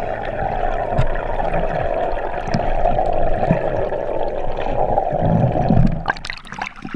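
Muffled underwater noise heard through a GoPro's waterproof housing: a steady rushing hiss with scattered low knocks. About six seconds in, the camera breaks the water's surface, the hiss drops away and there are a few sharp splashes.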